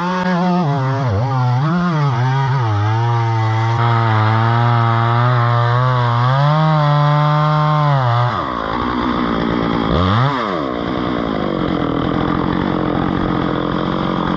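Petrol chainsaw running and cutting, its engine pitch wavering up and down under load. About eight seconds in the sound turns rougher, and near ten seconds the engine drops briefly and revs up again.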